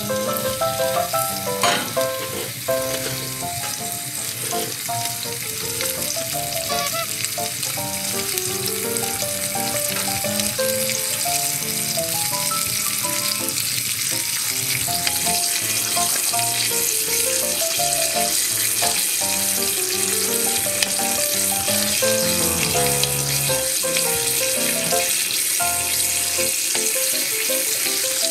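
A thick beef steak sizzling steadily in a frying pan over low heat on a wood stove, the sizzle growing a little louder as it goes. Soft background music plays underneath.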